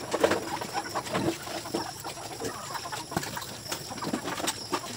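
Free-range native chickens clucking and calling, with many short, scattered clicks and knocks.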